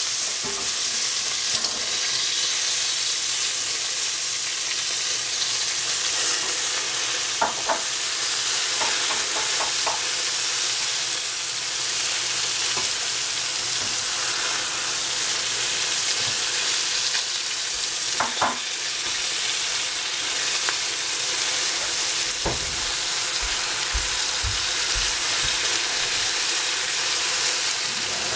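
Seafood and cabbage frying in a hot pan: a steady sizzle, with a few short clicks and light knocks scattered through.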